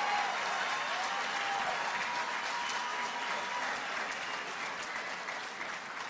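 Large seated audience applauding, the clapping slowly dying down toward the end.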